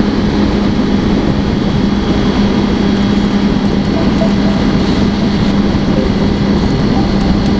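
Yamaha R1 inline-four sport bike engine running at a steady, constant speed while riding, with a dense rush of wind noise over it.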